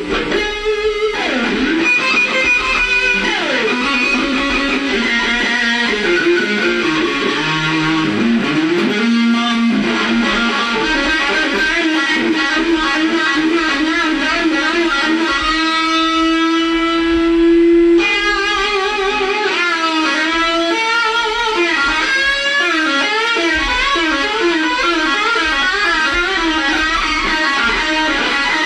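Electric guitar playing a lead line with string bends and vibrato, holding one long note for a few seconds near the middle.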